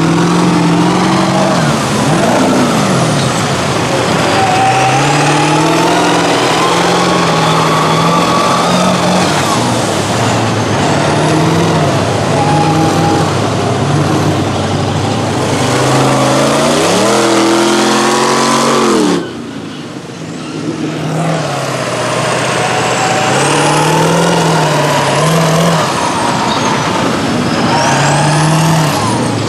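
Big lifted diesel mud trucks running through a mud pit, their engines revving up and down in steps, with a high whistle rising and falling above them. The sound drops off abruptly a little past the middle, then another truck's engine comes back up.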